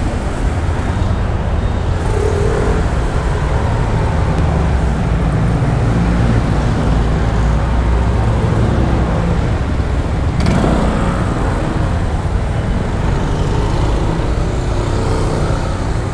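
Road traffic with a group of motorcycles riding past, over a steady low engine rumble. A short, sharp sound stands out about ten seconds in.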